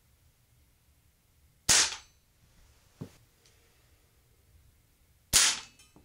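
Two sharp shots from a Crosman American Classic multi-pump pneumatic pellet pistol, about three and a half seconds apart, with pellets striking the plastic alarm keypad. A much fainter click comes between them.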